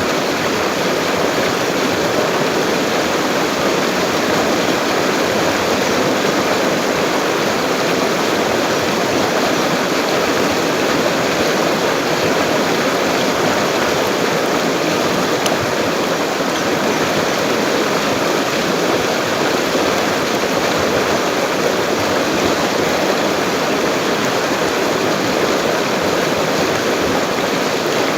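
A full-flowing river rushing steadily: an even, unbroken wash of water noise.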